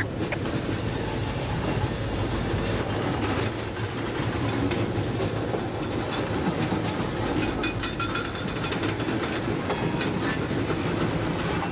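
Freight train of tank cars rolling past close by: a steady rumble of steel wheels on rail, with scattered clicks as the wheels cross rail joints.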